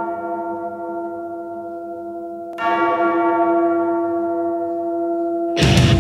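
A large bell tolling: a stroke already ringing and slowly fading, then a second stroke about two and a half seconds in, each a long ring of several steady tones. Loud rock music cuts in near the end.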